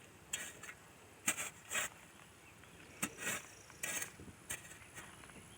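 A shovel scraping and digging into soil in several short, separate strokes.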